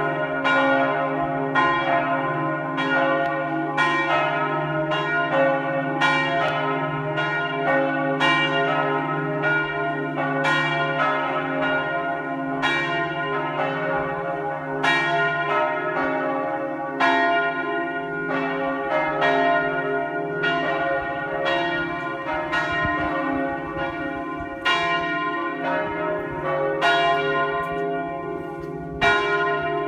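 Church bells pealing: repeated strikes about two a second, overlapping, with the tones ringing on and a steady low hum beneath.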